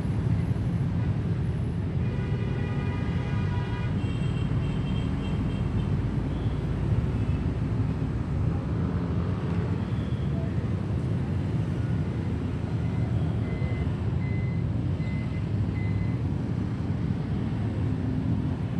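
Steady road traffic of motor scooters and cars passing close by, a continuous low engine rumble. About two seconds in, a pitched tone sounds for about two seconds over the traffic.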